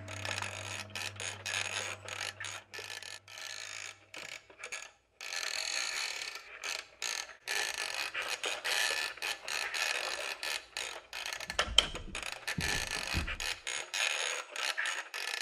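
Toy fireman clown's mechanism clicking and grinding in irregular bursts, with a few dull low thumps near the end.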